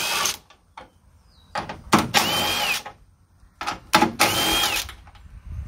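Cordless power driver spinning out the 10 mm radiator core support bolts in three short runs. Each run has a motor whine that climbs, holds and falls away. There are light clicks between the runs.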